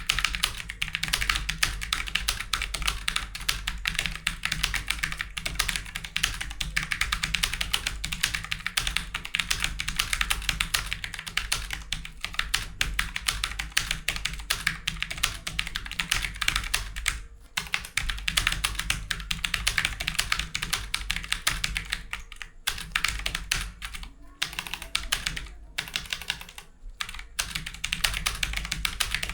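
Fast, continuous typing on a computer keyboard: a dense stream of keystrokes, broken by a few brief pauses in the latter part.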